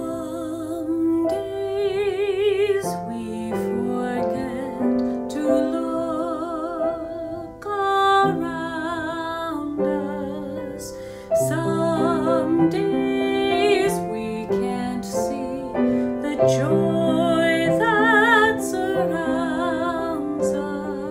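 A woman singing a slow solo with vibrato, accompanied by piano.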